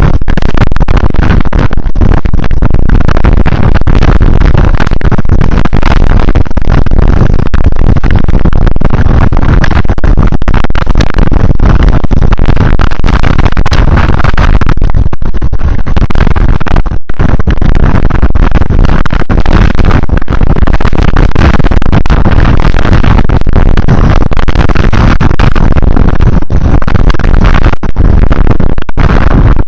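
Loud, distorted wind and rain noise overloading the microphone while travelling, a steady rushing roar with frequent brief dropouts.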